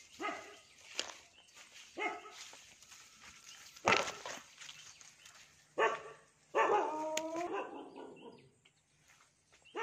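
A dog barking several times, about a second or two apart, the loudest bark near the middle.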